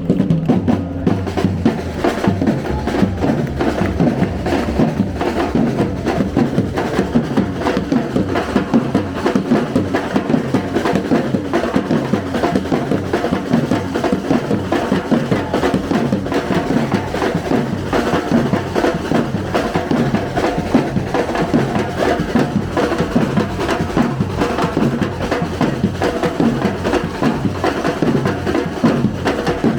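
Live street band music, with a busy drum and percussion beat under pitched instruments.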